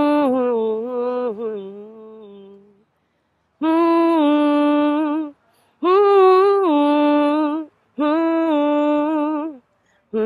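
A woman's voice singing a wordless melody unaccompanied, in short phrases of held notes separated by brief silent pauses.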